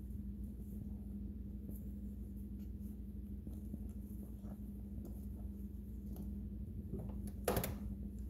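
Faint scratching and rustling of a Balinese kitten's paws and claws on a nylon bag as she climbs over it, with one louder rustling knock near the end, over a steady low hum.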